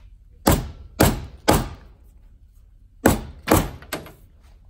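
Rubber mallet striking a lock grommet into a drilled hole in a solid wood door to knock it flush: two sets of three blows about half a second apart, the last blow lighter.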